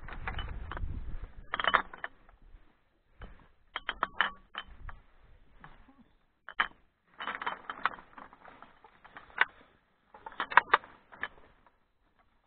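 A plastic rubbish bag with plastic bottles in it crinkling and rustling as litter is gathered, together with footsteps on loose stones. The sound comes in irregular bursts of crackles and clicks with short quiet gaps, and there is a low rumble at the start.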